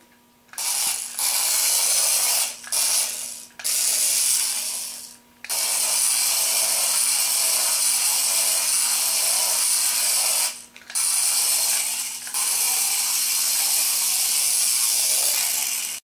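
A tiny Nano Racer RC car's electric motor and plastic gears whirring with a high, buzzy whine as it drives. The whine stops for a moment several times and picks up again.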